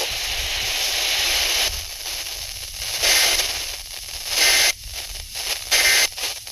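Radio static: a receiver hissing on a weak or empty frequency. The hiss is steady at first, then breaks into louder crackling bursts with short dropouts between them from about three seconds in.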